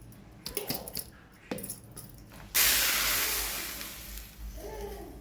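A few light clicks and knocks, then a sudden rushing hiss about two and a half seconds in that fades away over the next two seconds, as water is set on the stove to boil for steaming momos.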